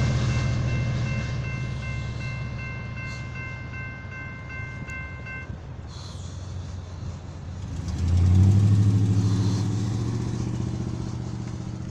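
Railroad crossing bell dinging in a steady repeated pattern over the fading rumble of a passing train; the bell stops about five and a half seconds in. About eight seconds in, a motor vehicle's engine comes in loud and slowly fades.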